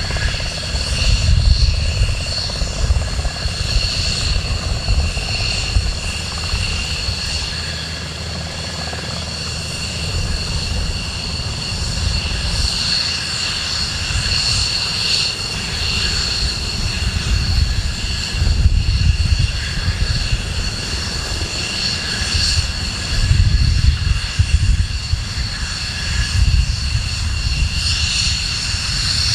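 Sikorsky UH-60 Black Hawk helicopter hovering low: a steady high turbine whine over the uneven low thudding of its rotor.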